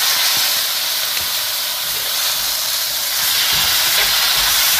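Eel stir-fry sizzling and hissing hard in a hot wok, a splash of water just added to the pan. A wooden spatula starts tossing the food and knocking against the wok in the second half.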